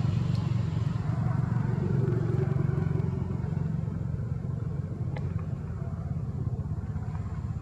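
Steady low rumble of a motor engine running.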